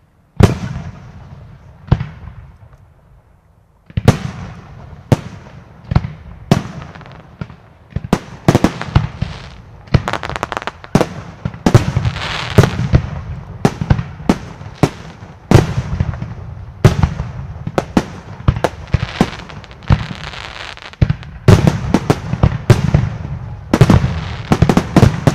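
Aerial firework shells bursting: a single loud bang early on and another about two seconds in, then from about four seconds in a rapid barrage of many bangs, several a second, with a low rumble between them.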